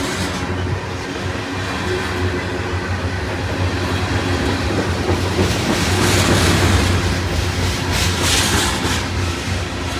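Canadian National freight train rolling past close by, its cars' wheels clicking over the rail joints. A steady low rumble runs underneath, with louder rushes of wheel noise about six and eight seconds in.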